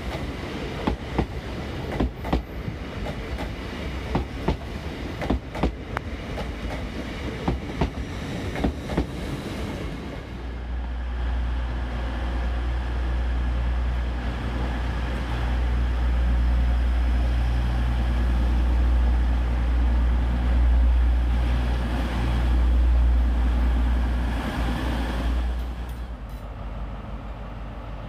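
Passing LNER Class 800 train, its wheels clicking over rail joints in pairs about once a second. After about ten seconds this gives way to the steady low rumble of a TransPennine Express Class 185 diesel multiple unit's engine, which grows louder and then eases off near the end.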